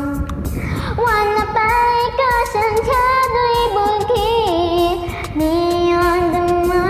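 A girl singing a melody with held, wavering notes over a karaoke backing track with a steady beat.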